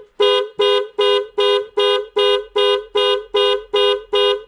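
1997 Lexus ES300's car horn honking in a fast, even rhythm, a bit over two honks a second, each a two-note blare: the car's alarm system set off by reconnecting the battery, which is normal.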